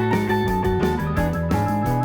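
Background music: an upbeat track with plucked guitar and bass over a steady beat.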